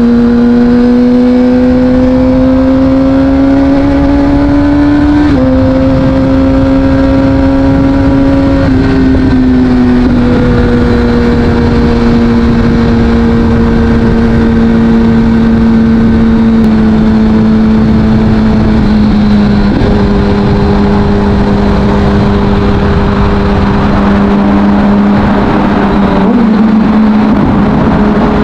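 Kawasaki Ninja ZX-6R inline-four with an Akrapovic exhaust under way. The engine note climbs gently, then steps down in pitch about five and nine seconds in. After that it holds nearly steady and sags slowly with a few more small drops. Wind rush grows near the end.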